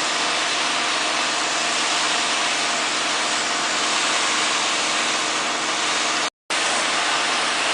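Street-washing truck at work: its engine running under a steady rush of water spraying onto the street. The sound cuts out completely for a moment about six seconds in.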